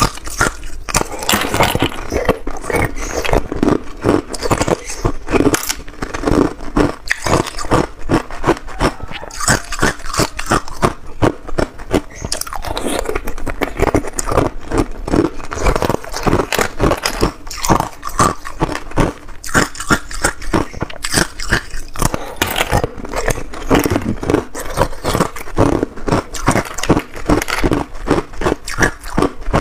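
Hard clear ice being bitten and chewed close to a clip-on microphone: a steady run of sharp, crisp crunches, several a second.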